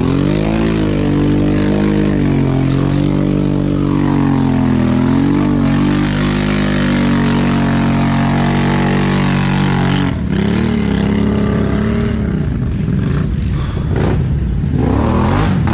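ATV engine held at high revs under load, its pitch wavering up and down. It breaks off briefly about ten seconds in, then climbs again, and dips once more near the end before rising.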